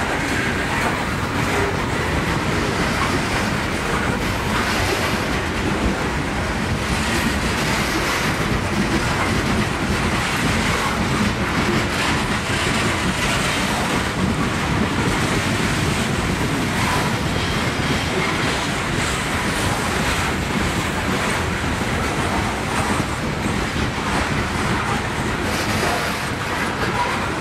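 Freight train of open-top hopper cars rolling past at a steady pace, its steel wheels clattering on the rails.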